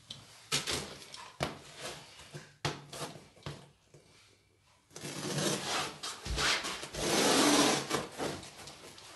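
Carpet being handled and dragged over foam underlay: irregular rubs, scrapes and light knocks, then a longer rushing rub that is loudest about seven seconds in.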